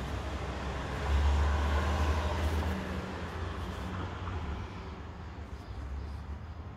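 Low rumbling traffic noise, swelling about a second in and slowly fading, as of a vehicle going past.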